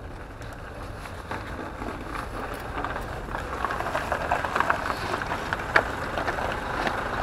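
Vacuum sewage tanker truck pulling up close, its engine running and growing steadily louder, with scattered small clicks over it.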